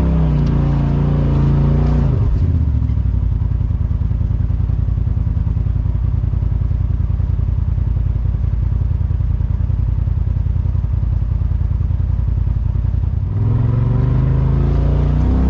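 Side-by-side UTV engine idling with a fast, even low pulsing. It runs at a steadier, higher note before dropping to idle about two seconds in, and picks up again near the end.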